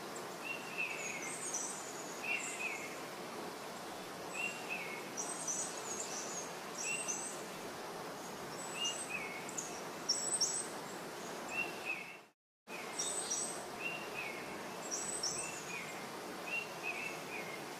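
Birds chirping, short repeated calls every second or two over a steady background hiss; the sound drops out completely for a moment about twelve seconds in.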